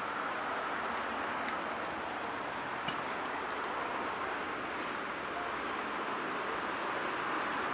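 Steady background hiss with a single short click about three seconds in.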